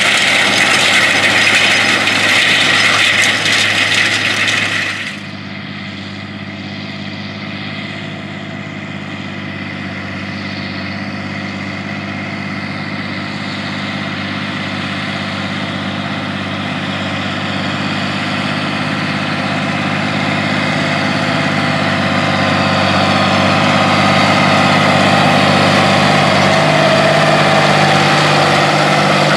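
For the first five seconds there is a loud scraping rattle of the spring-tine harrow dragging over the soil. It cuts off abruptly to the steady drone of a John Deere 8400's six-cylinder diesel pulling the harrow under load, which grows gradually louder as the tractor comes closer and passes.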